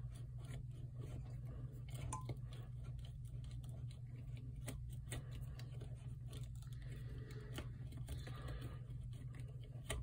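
Faint scraping and irregular light clicks of a Leatherman Curl multitool's slip-joint awl being twisted back and forth to bore a hole in a 2x4, over a steady low hum.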